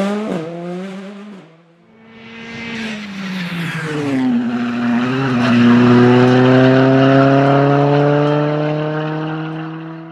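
Hyundai i20 R5 rally cars' 1.6 turbo four-cylinder engines at full throttle on a stage. One car accelerates away and fades out about two seconds in. Then another comes on towards the listener, its revs climbing steadily through a gear as it grows louder, until the sound cuts off near the end.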